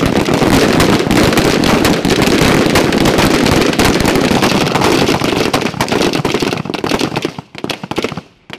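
A firing line of unsuppressed 5.56 mm service rifles, M4 carbines and M27s, shooting at once: a dense crackle of overlapping shots that thins to a few scattered shots near the end.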